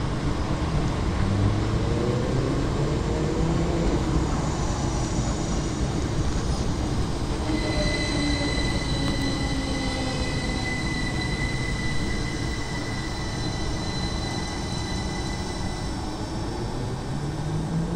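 A train running through the station, its engine or motor note rising over the first few seconds. A steady high-pitched squeal then sets in from about seven to fifteen seconds in.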